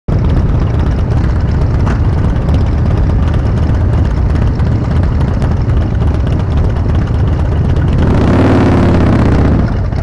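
Motorcycle engines running at low speed as a group of bikes pulls away one after another. About eight seconds in, one engine swells louder for under two seconds, then eases off.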